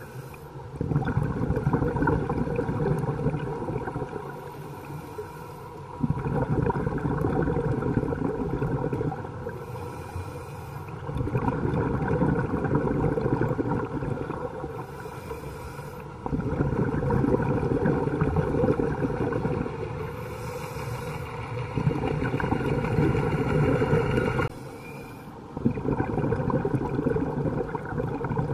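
Scuba diver's own breathing through a regulator, heard underwater: a rumble of exhaled bubbles lasting about three seconds comes roughly every five seconds, with quieter gaps between breaths.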